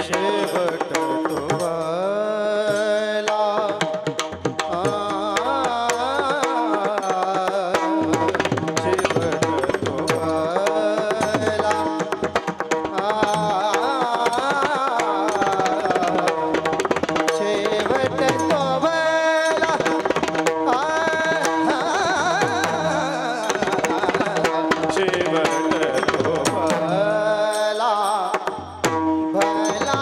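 Devotional kirtan singing by a male voice, with small brass hand cymbals (taal) struck in a steady beat and drum accompaniment under a held drone tone.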